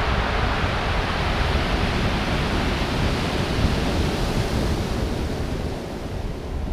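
Surf breaking and washing up a pebble beach: a steady rushing hiss that eases off about five seconds in, with wind buffeting the microphone as a low fluttering rumble.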